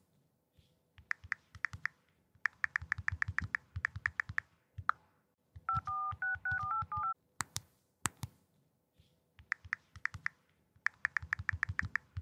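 Smartphone keyboard clicks typing out a text message, then a short string of keypad dial tones, two pairs of tones sounding together that step up and down in pitch. Two sharp clicks follow, then more rapid keyboard typing.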